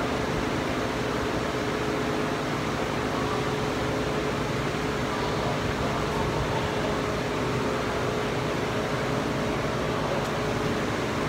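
Steady mechanical hum with a constant tone over an even hiss.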